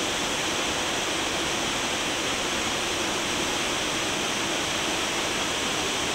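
Tall waterfall plunging down a cliff, a steady, even rush of falling water.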